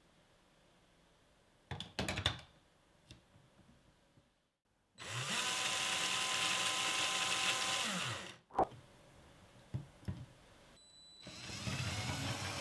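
A LEGO train's small electric motor and plastic gear train whirring. A short plastic clatter comes about two seconds in; then the motor spins up, runs steadily for about three seconds and winds down. It starts again shortly before the end as the train drives along the track.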